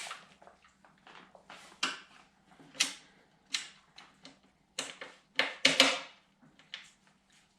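Irregular sharp clicks and clacks of tools and small metal hardware being handled while working on a nut and washer. There are about a dozen knocks, the loudest cluster about five and a half seconds in, over a faint steady hum.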